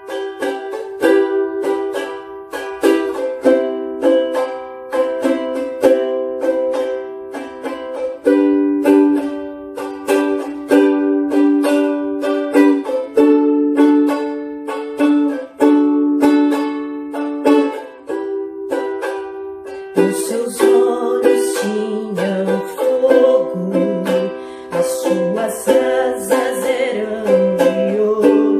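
Ukulele strummed in steady chords, playing a hymn tune; about two-thirds of the way through, a voice begins singing the melody over it.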